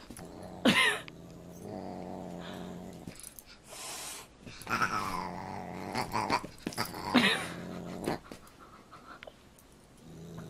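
A dog growling in long low stretches while a Siamese cat yowls at it as they play-fight, with a couple of short, loud cries that fall in pitch.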